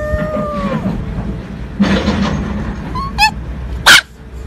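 Small dog whining in a high, held call that slides down at its end, then a wavering yip about three seconds in. A single loud, sharp bark comes just before the end.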